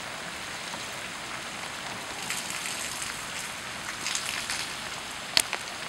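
Steady hiss of flash-flood water sheeting across a paved street, with rain falling. Scattered crackling ticks come about two and four seconds in, and there is one sharp click near the end.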